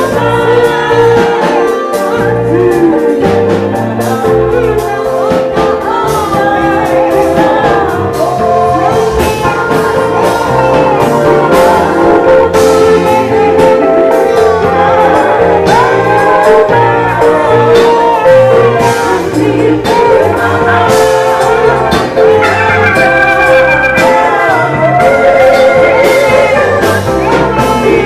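Live gospel band: singers on handheld microphones over electronic keyboards and a drum kit, amplified and loud, with a steady drum beat throughout.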